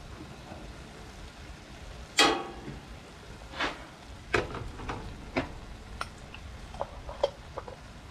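Ground beef with a little water sizzling faintly in a cast iron skillet on a propane camp stove. Several short sharp knocks and clicks sound over it, the loudest about two seconds in, then a few smaller ones.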